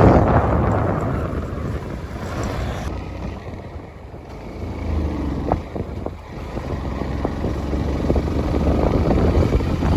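Wind buffeting the microphone: a low, gusting rumble that is strongest at the start, eases about three to four seconds in and builds again toward the end.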